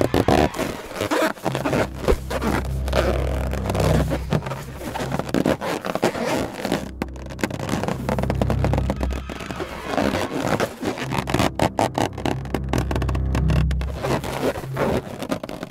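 Clothing sound effects: a long run of rustling, scraping and zipper sounds as a costume is taken off, under a low hum that comes and goes.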